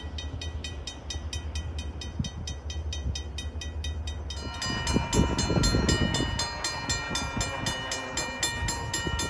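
Railroad crossing bells ringing with rapid, evenly spaced strokes. First comes a Railroad Accessories Co (RACO) bell. About four and a half seconds in it switches to a Safetran Systems bell, whose strokes ring on with a steadier, fuller tone.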